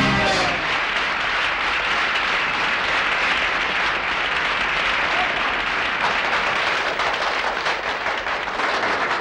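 A song's last notes end about half a second in, then an audience applauds steadily.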